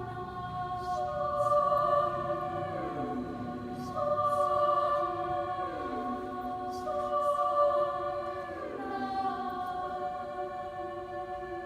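Choir singing held chords, with the lower voices sliding down in pitch roughly every three seconds while the upper notes sustain. A few faint short clicks come through above the singing.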